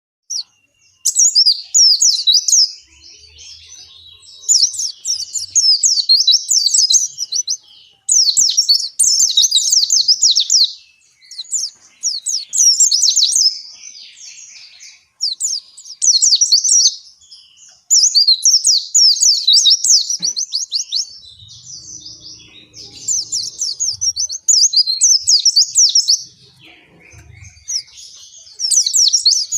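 White-eye (pleci, Zosterops) singing its long rambling 'ngalas' song: fast, high-pitched twittering phrases, each a second or two long, repeated one after another with short pauses.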